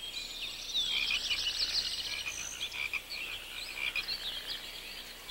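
A chorus of frogs calling: many overlapping, high-pitched rapid trills and croaks.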